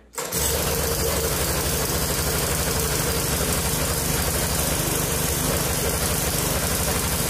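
MTD Yard Machines 21-inch push mower's engine catching a fraction of a second in and then running at a steady speed.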